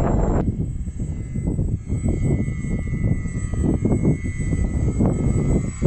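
Radio-controlled model Short Sunderland flying boat passing overhead, its four propeller motors giving a thin, steady whine. Heavy wind buffeting on the microphone comes and goes in gusts underneath and is the loudest part.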